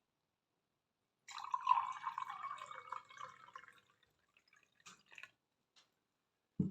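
Liquid being poured into a container for about two and a half seconds, with a pitch that slides down as it runs. It is followed by a few light clicks and a short dull thump near the end.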